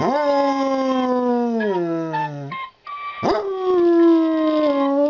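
Dog howling. One long howl slides slowly down in pitch and breaks off about two and a half seconds in, then a second howl swoops sharply up and holds steady.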